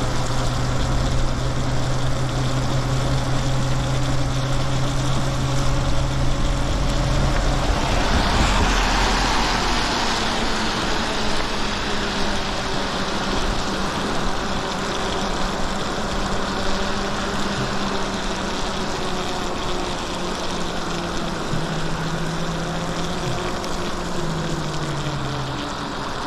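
Lyric Graffiti e-bike ridden on a wet road: a steady hiss of tyres on wet pavement and wind, with a low hum whose pitch drifts slightly. A louder rush swells about eight seconds in and fades over a few seconds.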